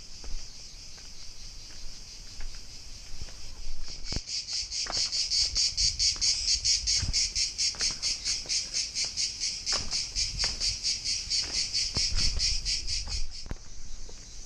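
Cicadas buzzing: a steady high drone that, about four seconds in, turns into a loud rhythmic pulsing of about five beats a second, stopping shortly before the end. Footsteps on stone paving tap faintly underneath.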